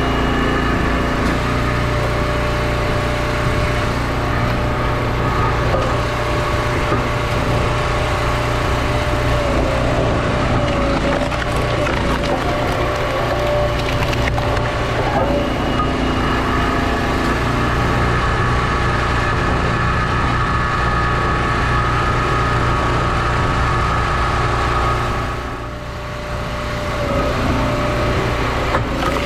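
Engine-driven log splitter running steadily, its pitch shifting slightly as the hydraulics take load, while hickory rounds crack and split apart on the wedge. The engine note drops briefly near the end.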